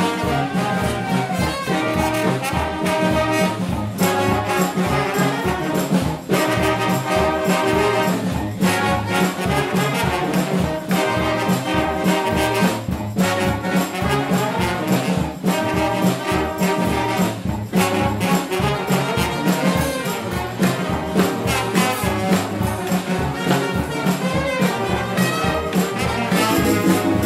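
A brass band playing funk live: a sousaphone bass line under trombones, trumpets and saxophones, over a steady beat.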